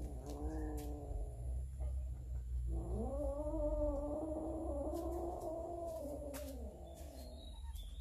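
Domestic cat yowling a long, low, drawn-out warning growl over a shared plate of raw fish: one wail trailing off about two seconds in, then a longer one that rises about three seconds in and holds before fading near the end. It is the threat call of a cat guarding food from the other cats.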